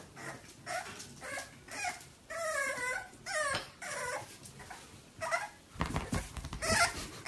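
French bulldog puppy giving a string of short, high whimpers and whines while wrestling a plush toy, with one longer wavering whine about two and a half seconds in.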